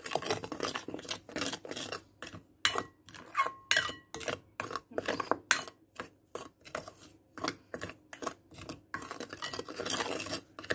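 Plastic spoon stirring a dry cornflour and spice mix in a glass bowl, scraping and knocking against the bowl in quick, uneven strokes.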